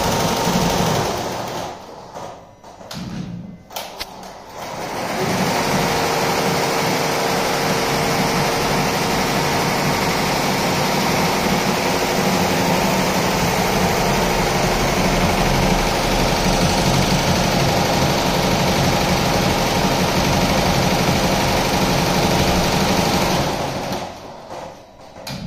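Zing multi-head computerized embroidery machine stitching, running steadily. The sound drops away briefly about two seconds in and again near the end.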